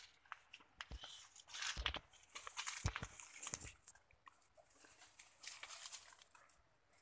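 Leaves and twigs of coffee bushes rustling and crackling as someone pushes through them, with dry leaf litter crunching underfoot: irregular crunches and swishes, busiest in the first half.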